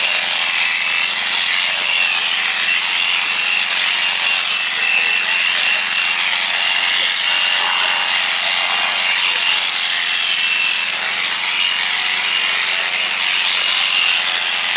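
Two electric sheep-shearing handpieces running continuously as they cut through fleece: a steady buzzing hiss with a high, steady whine on top.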